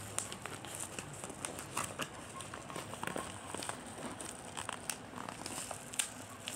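A parcel's packaging being handled and opened: irregular crinkling and rustling with many small clicks and crackles.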